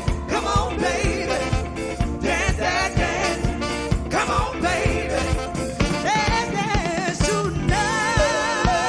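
Live soul music: singers over a band with a steady drum beat, moving into a long held note near the end.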